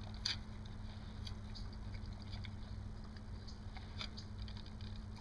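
A dog chewing food out of a stainless steel bowl: scattered soft clicks and smacks of its mouth working the food, over a low steady hum.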